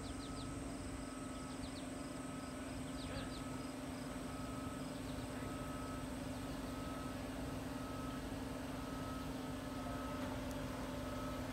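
Steady low machinery hum on a construction site, with a short beep repeating about once a second. Faint insect chirps sound in the first few seconds.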